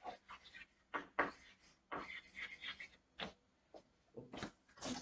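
Chalk writing on a blackboard: a series of short, irregular scratches and taps, with a few scattered light knocks later on.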